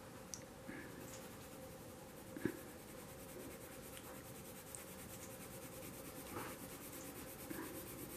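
Coloured pencil shading on drawing paper: a faint, steady scratching of the pencil strokes, with a light knock about two and a half seconds in.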